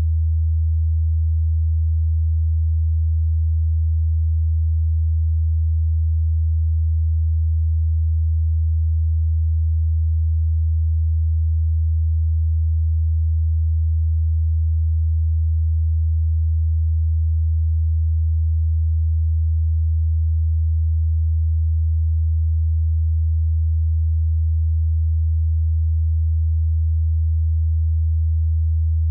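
A single steady low-pitched hum, a pure unchanging tone with no other sound over it.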